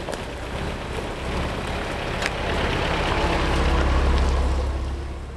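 Pickup truck engine running as the truck drives off-road. Its low hum grows louder over the second half, under a broad rushing noise that swells and then fades.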